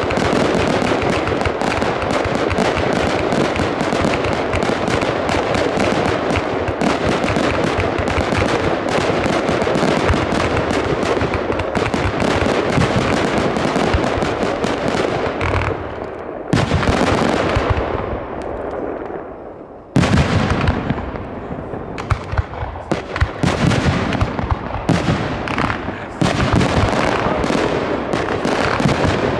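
Fireworks display: aerial shells bursting and crackling in a dense, continuous barrage through the first half. Around the middle it thins to single loud bangs a few seconds apart, and near the end the barrage turns dense again.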